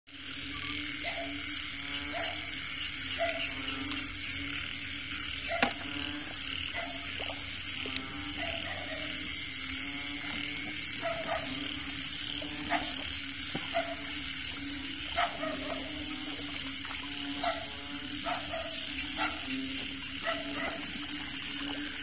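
Frogs croaking in short calls repeated about every half second to a second, over a steady background chorus, with a few sharp clicks.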